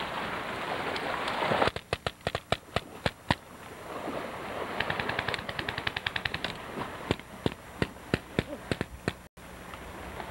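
Paintball markers firing: scattered sharp pops, then rapid strings of about ten shots a second. This comes after a rushing noise in the first couple of seconds.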